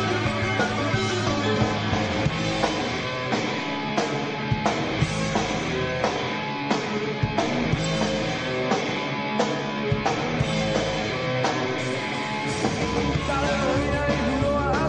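Rock band playing live: guitars, bass, drums and keyboard in an instrumental passage with no vocals, over a steady drum beat.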